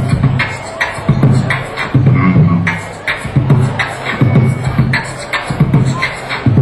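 Live beatboxing over a microphone: a steady, repeating beat of vocal bass-drum thumps and sharp snare hits.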